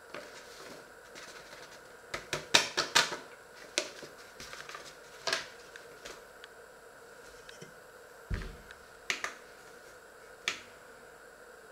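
Handling clicks and knocks at a kitchen worktop: a paper flour bag crinkled and tapped in a quick cluster of sharp clicks, then a stainless steel mixing bowl lifted off a digital kitchen scale and set down on the wooden counter with a low thud a little after eight seconds in, followed by a few light knocks on the scale.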